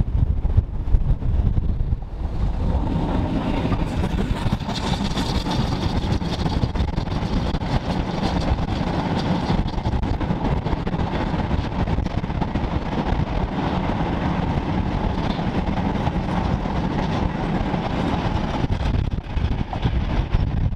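Steam-hauled goods train of open wagons passing close by. Its running sound rises about two seconds in and then holds as a steady rumble while the wagons roll past.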